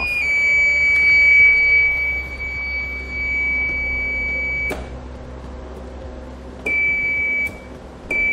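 Electronic buzzer sounding one steady high tone for about four and a half seconds, cut off with a click, then two shorter beeps near the end.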